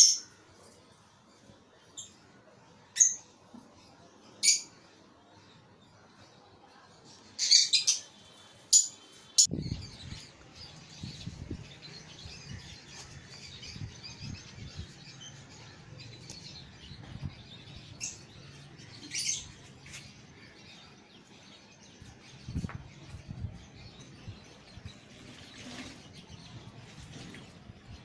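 Caged lovebirds giving short, shrill chirps: a loud one at the start, a few single calls, a quick cluster about a third of the way in, and another past the middle. Under them, from about a third of the way in, runs a low microphone rumble.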